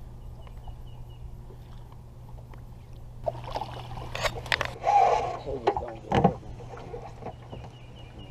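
Close handling noise on a bass boat while a hooked bass is brought in: a run of sharp knocks, clatters and rustling about three seconds in, loudest near five and six seconds, over a steady low hum.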